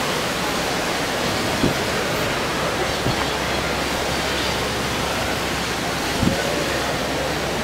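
Steady rushing outdoor ambient noise, with two soft low bumps, one about a second and a half in and one about six seconds in.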